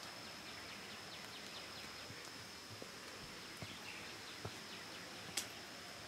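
Rainforest ambience: a thin, steady high-pitched tone over a soft background hiss, a bird giving a quick series of short falling notes in the first couple of seconds, and a few sharp clicks in the second half.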